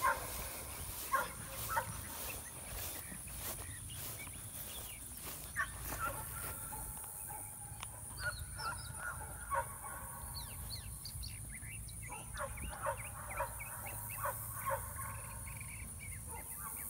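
Faint bird calls: many short calls scattered through, busiest in the second half, over a faint steady high hiss.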